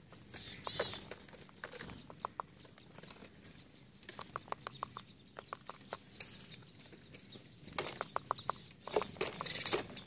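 Tits at a feeder: thin high calls near the start, including one falling whistle, then several short runs of quick light taps as a bird pecks at the food.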